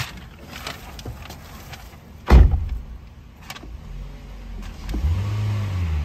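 Toyota Corolla's four-cylinder petrol engine revved in Park: the engine note climbs about five seconds in and holds at around 2,000 rpm. A single sharp thump sounds a couple of seconds in.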